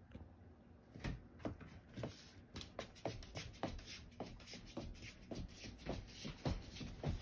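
A small dog chewing a crunchy treat: a run of crunches about two or three a second, starting about a second in.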